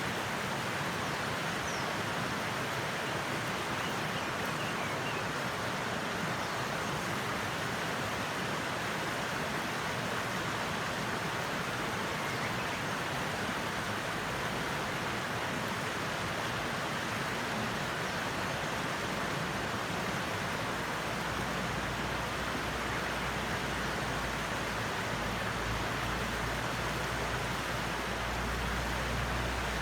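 Wood fire burning in a lidded BBQ stove: a steady, dense crackle and hiss. A low rumble joins in about two-thirds of the way through.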